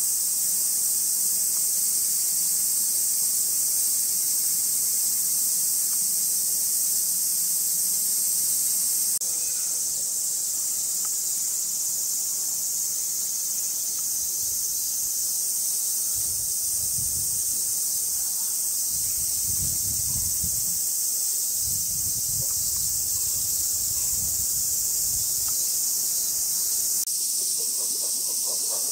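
Steady, hissing chorus of summer cicadas, high-pitched, with a few low rumbles about halfway through.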